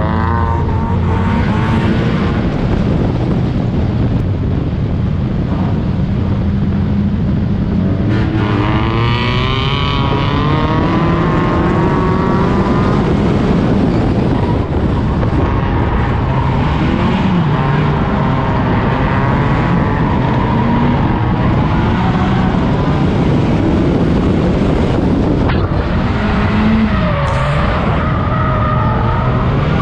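Four-cylinder race car engine running hard from on board, its pitch climbing and falling as it accelerates and lifts through the corners, with other race cars' engines running close by.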